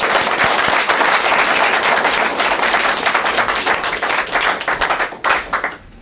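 Audience applauding, thinning out to a few last separate claps near the end.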